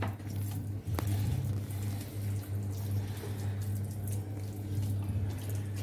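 Wet squelching of hands working a thick hung-curd masala marinade into a whole raw chicken, over a steady low hum.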